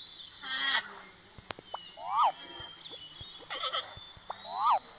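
Animal calls: four short pitched calls about a second apart, two of them rising and then falling in pitch, over a steady high-pitched background of insects or birds.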